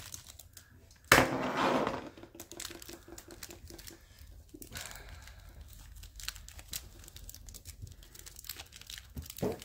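Thin clear protective plastic wrap crinkling and tearing as it is cut and picked off an action figure with a hobby knife, in scattered faint crackles and clicks. A louder burst of rustling comes about a second in, and a short one near the end.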